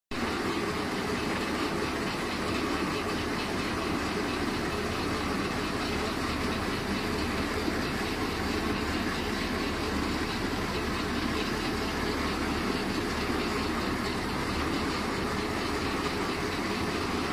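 Sheet-metal profile roll forming machine running: a steady, unchanging mechanical noise from its drive motor and forming rollers.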